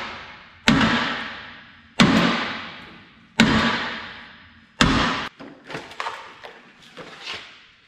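Four heavy hammer blows on the sprayer's steel hitch frame, about one every second and a half, each ringing out and dying away, knocking a part that leans out back into line. After about five seconds they give way to lighter clanks and rattles of tools being handled and set down.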